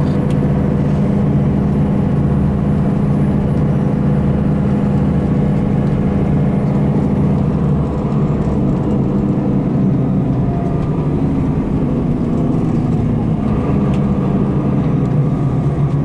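Tour coach's engine running steadily with road noise, heard from inside the cabin. The engine note shifts a little about halfway through.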